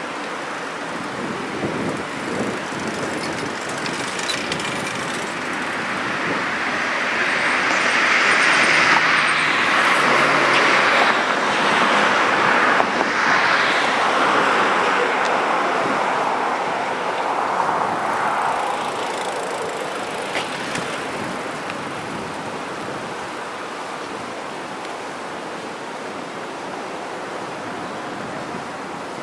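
A road vehicle passing by over a steady background rush: the noise swells over several seconds, is loudest around the middle, and fades away again.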